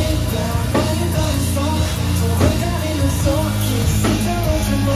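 Live band playing loud: electric guitar and drum kit keeping an even beat, with singing over it.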